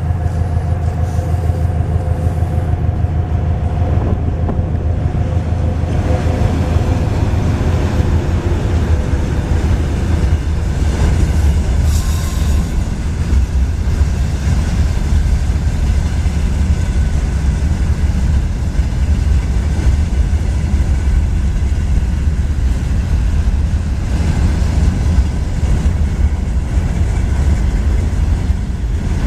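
Freight train hauled by a VL80S twin-section AC electric locomotive rolling past with a loud, steady, heavy rumble of wheels on rails. A steady hum sounds over the rumble for the first few seconds and fades, and a brief sharper high sound comes near the middle.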